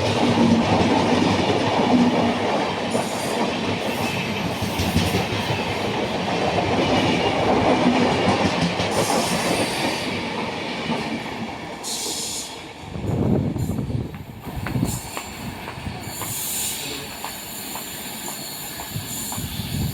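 An express train running through a station at full speed without stopping: loud, dense rumble and rattle of the passing coaches that eases off about twelve seconds in as the last coaches go by.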